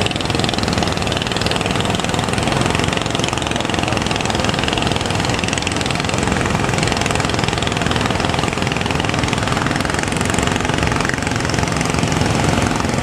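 A fishing boat's engine running steadily under a constant rushing noise.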